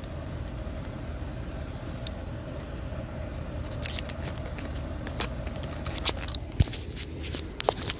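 Scattered clicks and knocks from the recording phone being handled, over a steady low outdoor rumble with a faint hum. The handling starts about halfway through and gets louder near the end.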